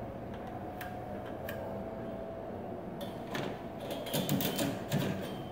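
Tool-handling noises: a couple of light clicks early on, then a busy run of clicks and low knocks over the last two seconds or so as a steel square and a framing profile are moved and set down.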